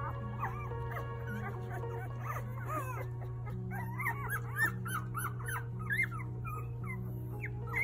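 A litter of one-week-old puppies squeaking and whimpering: many short squeaks that glide up and down in pitch, getting busier about halfway through, over soft background music.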